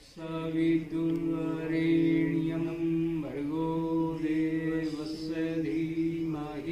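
A voice chanting one long held note on a steady pitch. The pitch dips briefly about three seconds in, and the note stops at the end, as in a breath-long yogic chant.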